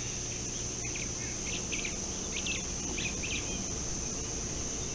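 Steady, high-pitched insect drone, like crickets, with a string of short chirping bird calls in the middle and a low rumble underneath.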